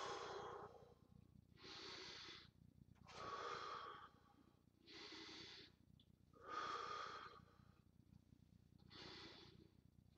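A man breathing deeply and slowly, six evenly spaced breaths, each a soft rush of air.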